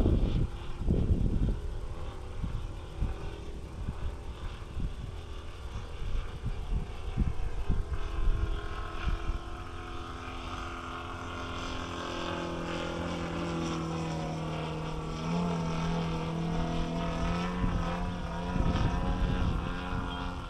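Engine and propeller of a 35% scale Yak radio-controlled aerobatic model airplane flying at a distance, its pitch sliding down and up as it manoeuvres, clearest in the second half. Wind buffets the microphone with low rumbling gusts, loudest in the first half.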